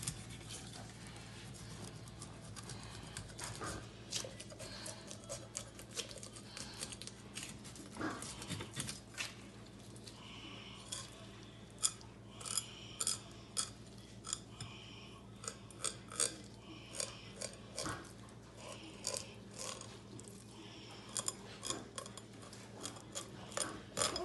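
Kitchen knife filleting a whole muksun whitefish on a wooden cutting board: faint, irregular crunching and clicking as the blade works along the backbone and through the rib bones, with short scraping strokes.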